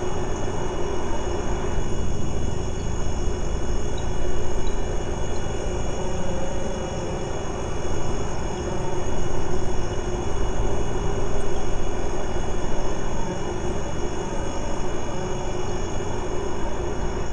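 A dense, steady rumble with several held tones above it.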